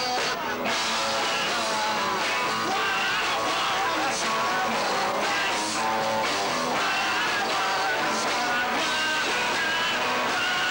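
Live rock band playing, with electric guitars to the fore.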